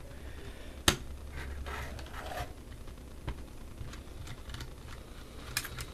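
Screwdriver working small screws out of a plastic laptop case: faint scraping and rustling with scattered small clicks, one sharp click about a second in and a few more near the end.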